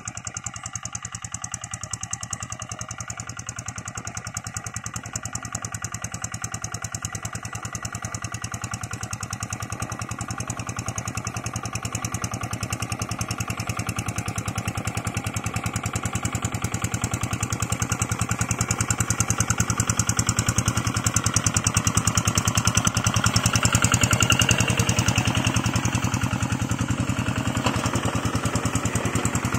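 Old Kubota single-cylinder diesel engine on a two-wheel hand tractor, running steadily under load as it pulls a moldboard plough through wet paddy mud. It grows louder as the tractor comes closer and is loudest about three-quarters of the way through.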